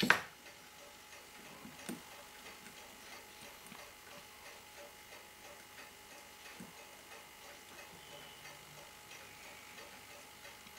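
Faint, steady ticking of a clock or watch mechanism, with a sharp click right at the start and a lighter click about two seconds in as small tools work on a watch movement.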